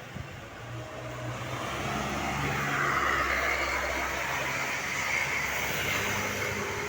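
A road vehicle driving past: its engine and tyre noise build to a peak about three seconds in, then fade away. A short knock sounds right at the start.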